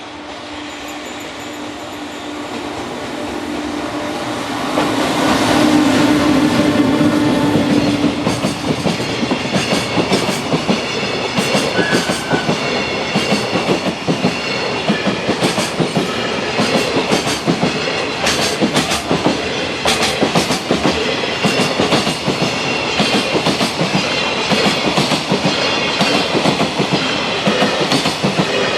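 Freight train hauled by an EF210 electric locomotive passing a level crossing. It grows louder over the first five seconds with a steady hum from the locomotive. From about eight seconds in, a long run of wagon wheels clacks over the rail joints in a quick, even rhythm.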